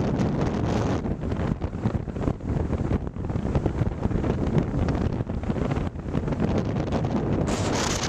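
Strong wind buffeting the microphone in gusts, a constant low rumbling rush that flutters rapidly in level.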